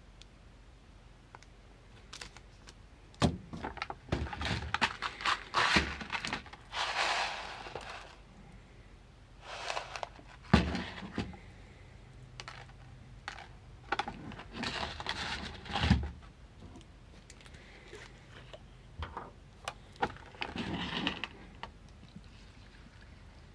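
Foil packet and plastic packaging crinkling and rustling in bursts as it is handled, with sharp clicks and knocks of a plastic food tray; the loudest knocks come about ten and sixteen seconds in.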